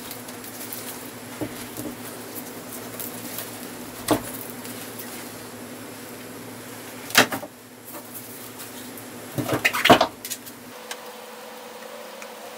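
Handling noise from a vintage Porter-Cable BB10 belt sander's metal housing and its cloth dust bag: scattered knocks and rustles, a sharper knock about halfway through and a short clatter about ten seconds in. A steady low hum runs underneath and shifts higher near the end.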